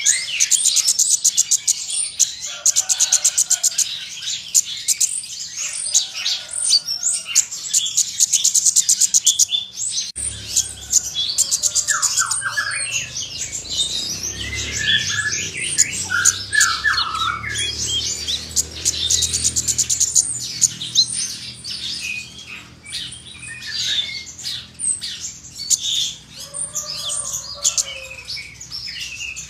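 A caged konin songbird singing without pause, a dense run of fast, high chattering trills and varied mimicked phrases, the bird in full song. A low steady hum joins in about ten seconds in.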